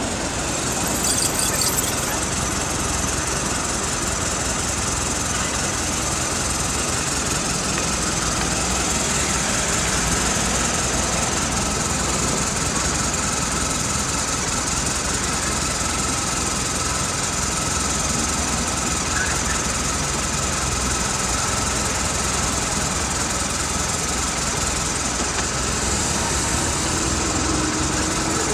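Police motorcycle engine idling close by, a steady even running sound with a faint steady high tone over it.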